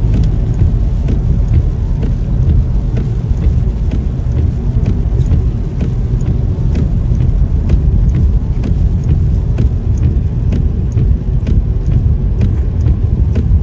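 Car cabin on a wet road: steady low rumble of engine and tyres, with scattered light ticks over it.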